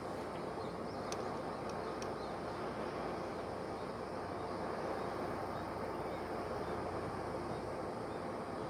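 Camp stove burner running steadily under a pot of water that is coming to the boil.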